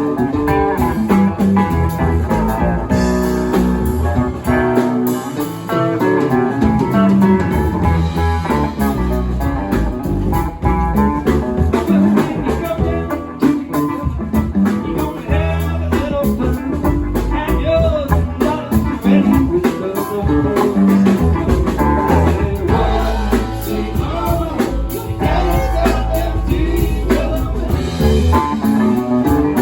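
Live band playing a blues number: guitar lines over bass and drum kit, with some singing.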